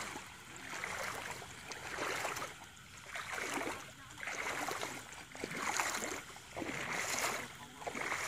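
Shallow water sloshing and swishing in repeated surges, about once a second, as people wade through flooded paddy water dragging a fishing net.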